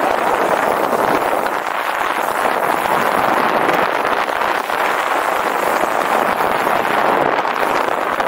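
Steady rushing wind noise on the microphone during a fast downhill ride, with the rolling rumble of the ride underneath.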